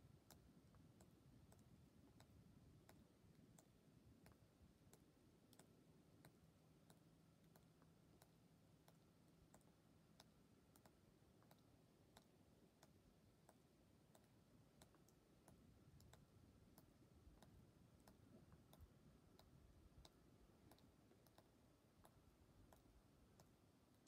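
Near silence: faint low background rumble with faint, sharp, unevenly spaced clicks, about two or three a second.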